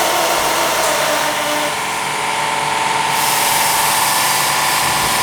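Compressed air rushing steadily into a stretched tire on a new wheel to seat its bead, getting louder and hissier about three seconds in.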